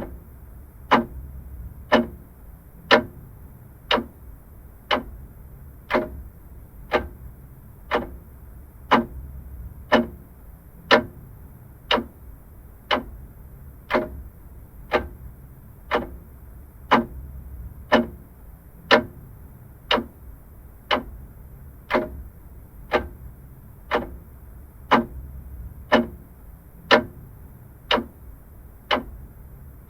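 Vintage mechanical clock ticking steadily, one tick a second, over a faint low background hum.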